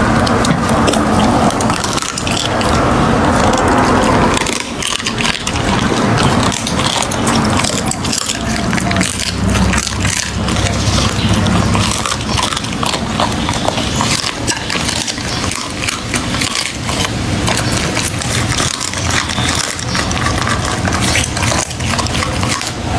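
A dog chewing raw meat and bone: wet smacking with many sharp crunches and cracks, in rapid, uneven succession.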